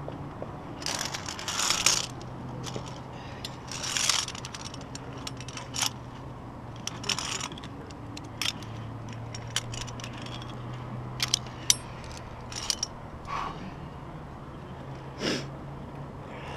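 Irregular metal clinks and short scrapes of climbing carabiners and lanyard gear sliding and clipping along a via ferrata steel cable, with scuffs against the rock.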